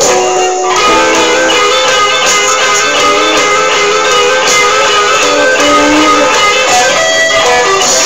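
Live blues band playing, with a guitar improvising over the blues.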